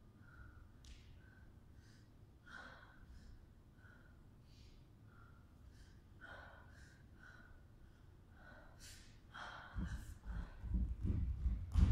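A dancer's breathing, short audible breaths against a quiet room. About ten seconds in, feet start thudding and sliding on the wooden studio floor as the movement picks up.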